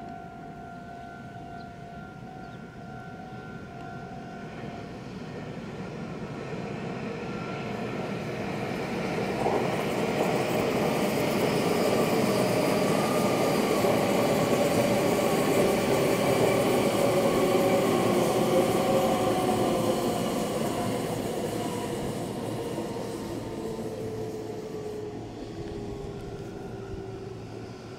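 A Meitetsu 2000 series μSKY electric train passing at speed. The rail rumble and motor whine build over several seconds, peak as it goes by, then fade, with the whine falling in pitch as it moves away.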